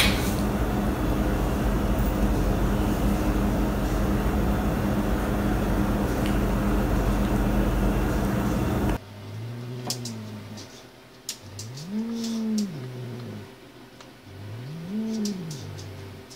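A steady hum with noise for about nine seconds, then it cuts off. After that, a cat gives three low, drawn-out meows, each rising and then falling in pitch.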